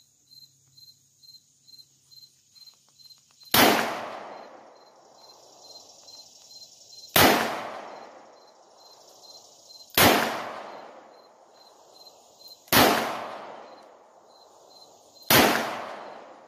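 Five shots from a .357 Taurus revolver, spaced about three seconds apart, each echoing and dying away over a second or more. Crickets chirp faintly and steadily between the shots.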